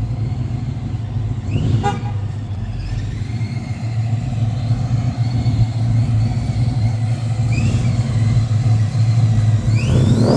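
Procharger-supercharged 427ci LS V8 idling steadily, with short rising whines from the blower. Near the end it starts to rev, the supercharger whine rising with it.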